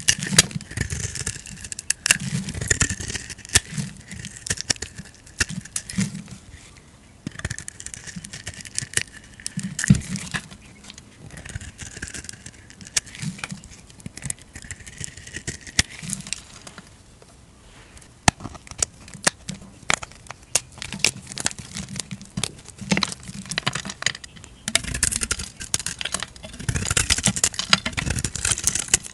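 A flat metal blade cutting and shaving into bars of soap, the soap cracking and crumbling off in flakes with dense, crisp crackles. The crackling eases off a little past halfway and picks up again, louder, near the end.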